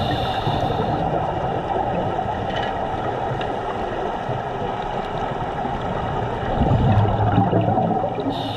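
Muffled underwater noise picked up through a dive camera's housing on a scuba dive: a steady rushing hiss, with a louder low bubbling rumble about seven seconds in.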